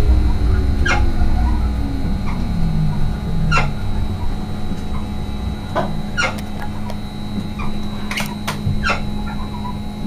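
Stadler FLIRT electric multiple unit heard from the cab: the traction drive's whine falls in pitch and fades over the first three seconds. Under it a steady electrical hum and running rumble continue, the rumble dying away about halfway. Short, sharp squeaks come every second or two.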